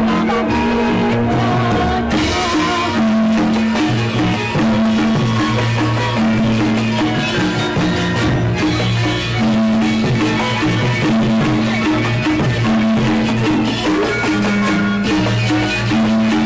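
A live gamelan ensemble with drums and violins playing a steady, rhythmic piece, with repeated low melodic notes over a percussion beat.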